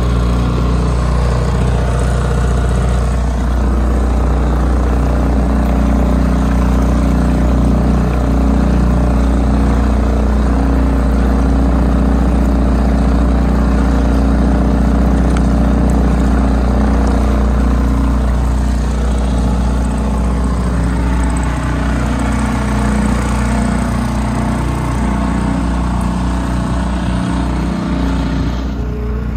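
Small motorboat's engine running steadily under way, with water rushing along the hull.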